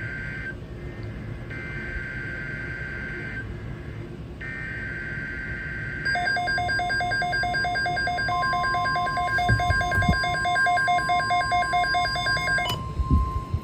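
Emergency Alert System SAME header: three bursts of screeching two-tone digital data, each about two seconds long with a second's gap between, marking the start of a weather alert. Then a rapidly pulsing electronic alarm tone, joined about eight seconds in by a steady single tone that is consistent with the NOAA Weather Radio 1050 Hz warning alarm. The pulsing stops abruptly near the end while the steady tone keeps going.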